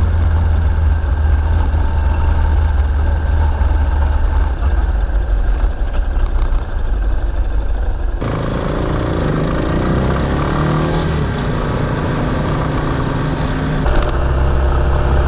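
Yamaha Serow 250's single-cylinder engine running on the move, a steady low drone. The sound changes abruptly about eight seconds in and again near the end, and in the middle stretch the engine pitch rises and falls as the revs change.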